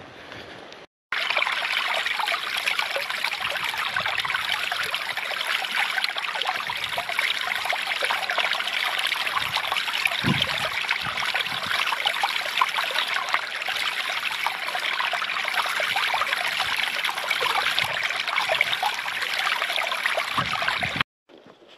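Shallow stony stream close by, water trickling and babbling over rocks in a steady rush; it starts suddenly about a second in.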